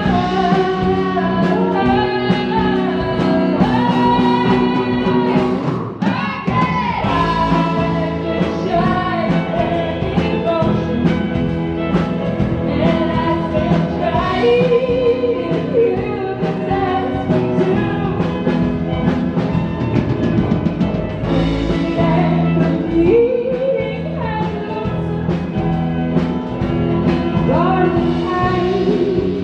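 Live band playing a sad country-rock song, with sung vocals over the instruments.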